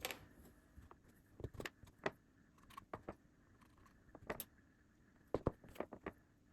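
Faint, irregular light clicks and taps of small wooden parts and a glue bottle being handled on a worktable while the parts are glued together.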